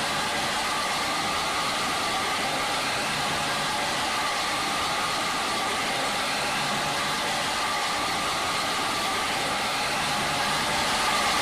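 Tour bus running steadily: an even hiss of engine and road noise that holds at one level, with no revving or horn.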